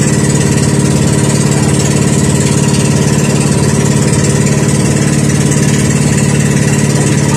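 Motorized outrigger boat's engine running steadily at constant speed, a loud even drone with rapid regular firing pulses, over a steady hiss of wind and water.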